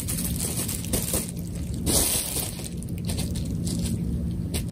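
Bubble wrap crinkling and crackling under a cat's paws as it steps and shifts on the sheet, with a few louder snaps about one and two seconds in.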